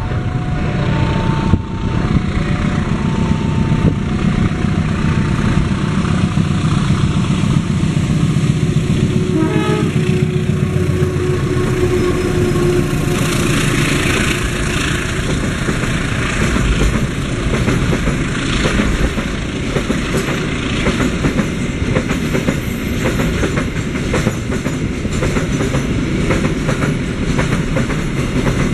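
GE CC206 diesel-electric locomotive hauling a container freight train, sounding its horn in short blasts at the start, its engine rumble growing as it comes past. From about halfway in, the loaded container flatcars roll by with a steady clickety-clack of wheels over rail joints.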